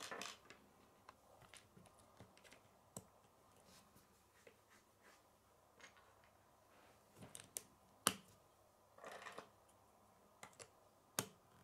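K'nex plastic rods and connectors being handled and snapped together: scattered quiet clicks, with a sharp snap about eight seconds in and another near the end.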